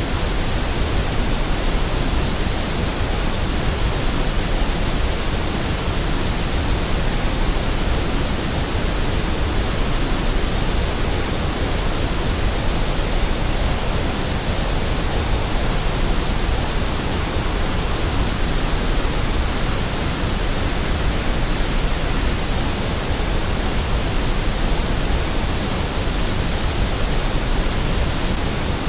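Steady white noise: an even, unchanging hiss across all pitches.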